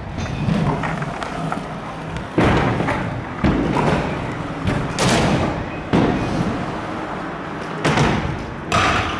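Scooter and skateboard wheels rolling over skatepark concrete and ramps, with about six sharp thuds and slams spaced through it from landings and decks hitting the ground.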